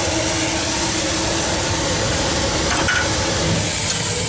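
Steam blower on a wood-fired fire-tube boiler giving a steady hiss as its steam jet draws air up through the fire.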